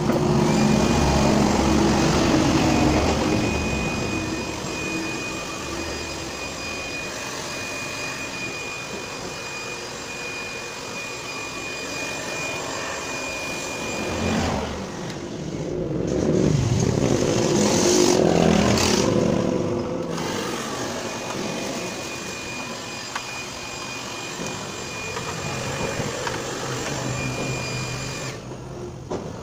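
Electric dust blower running in spells to clear thick dust from an old CRT TV's circuit board, a steady motor whine over the rush of air. It is loudest at the start and again a little past halfway, with short breaks in between.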